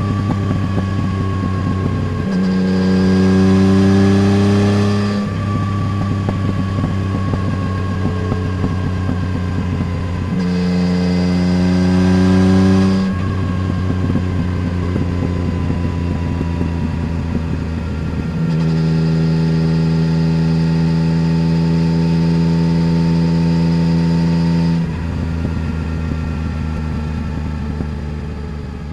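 Yamaha Tracer 900 GT's three-cylinder engine running through a Roads Italia aftermarket exhaust as the motorcycle is ridden. The throttle opens three times, at about two seconds in, about ten seconds in and about eighteen seconds in, and the engine note gets louder with each. In between it eases off, its pitch falling slowly.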